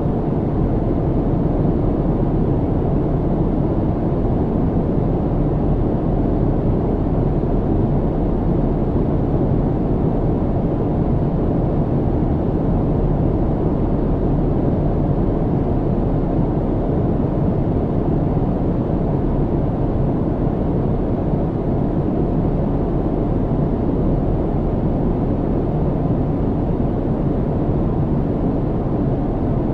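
Steady low cabin drone of an airliner in cruise: engine and airflow noise heard from inside the cabin, deep and even, with nothing standing out.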